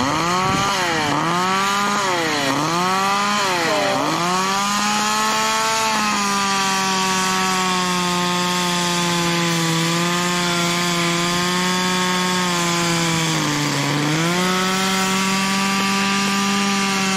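Chainsaw running at high revs while cutting storm-felled branches. Its pitch sags and recovers three times in the first few seconds as it bogs in the cut, then holds steady, with one more dip about fourteen seconds in.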